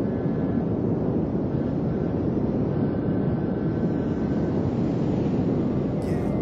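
Steady low rumbling noise, like a distant traffic or aircraft drone, with a few faint thin tones above it. A brighter, sharper sound cuts in just at the end.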